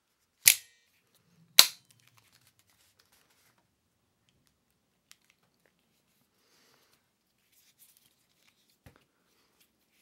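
Locking pliers snapping, two sharp metallic clicks about a second apart near the start, followed by a few faint clicks of metal handling as the pliers are clamped on the sword's pommel.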